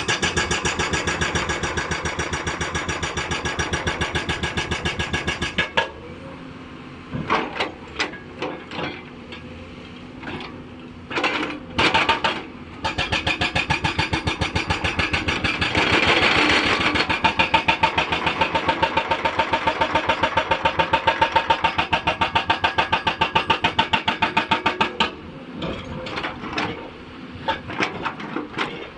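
Hydraulic breaker on a Hyundai 290 excavator hammering rock in fast, even blows over the diesel engine. It stops about six seconds in, leaving the engine running with a few separate knocks. It starts hammering again around thirteen seconds in and stops again near twenty-five seconds.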